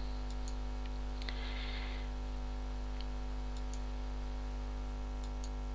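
Steady low electrical hum with a few faint, scattered computer clicks as the presentation is moved to the next slide.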